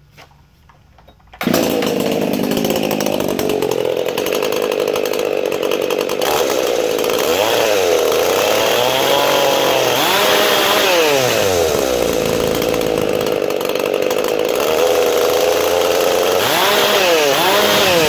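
Ported Stihl MS 391 two-stroke chainsaw with a custom buckshot muffler fires up about a second and a half in and runs loud. It is revved up and back down several times in the middle and again near the end.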